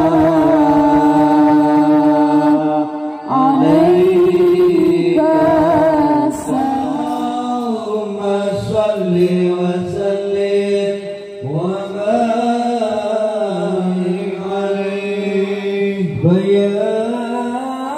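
Sholawat, Islamic devotional chanting: voices sing long drawn-out melismatic notes, phrase after phrase, with a fresh phrase rising in about three times.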